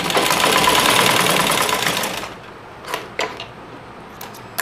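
Domestic sewing machine running for about two seconds as it stitches the elastic, then stopping. Two sharp clicks follow about three seconds in.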